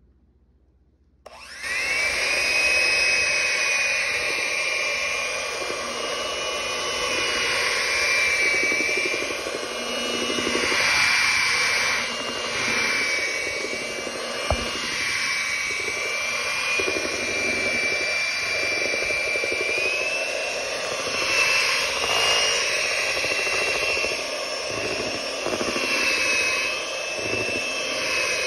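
Electric hand mixer starting about a second in and running steadily, its twin beaters churning cake batter as dry mix is beaten into the wet ingredients. A high motor whine runs throughout, its pitch shifting a little as the beaters work the batter, with a single click midway.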